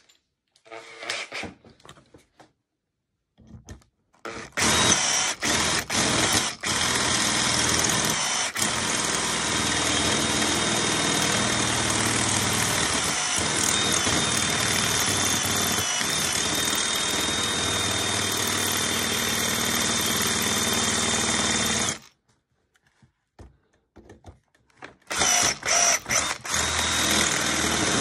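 Cordless drill boring into the front of an Ultion 3* Diamond euro cylinder lock held in a vise, drilling through toward the lock's firing pin. It starts about four seconds in with a few short bursts, runs steadily, stops abruptly about three quarters of the way through, then starts again in short bursts before running on near the end.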